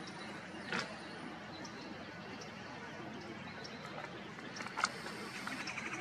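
Gulls giving two short, sharp high calls, about a second in and again near the end, over a steady background hiss; just before the end a fast, rapidly repeating high chatter starts.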